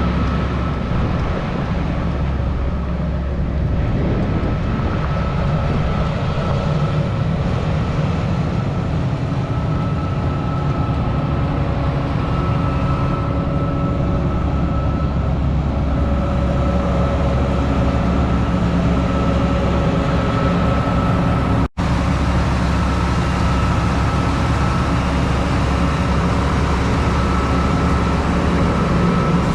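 Large farm machine's engine running steadily under way, with a steady whine above the low engine sound; the sound drops out for an instant about 22 seconds in and then carries on the same.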